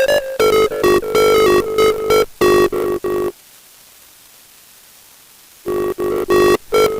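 Electronic TV channel ident jingle with synth notes, cut into short stuttering, repeating fragments. It breaks off about three seconds in, leaving only faint hiss for about two seconds, then the chopped jingle starts again.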